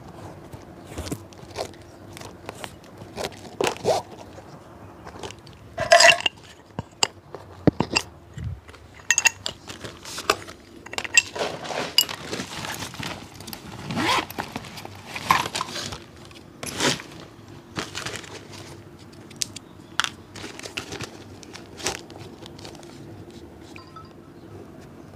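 A cobbler working on a shoe by hand: irregular scrapes, taps and clinks of tools against leather and sole, with a few louder knocks and scrapes scattered through, over a faint steady hum.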